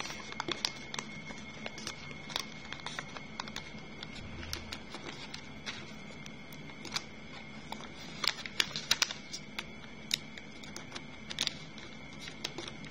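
Origami paper being folded and creased by hand: scattered crinkles and light taps, busiest about eight to nine seconds in, over a faint steady high-pitched whine.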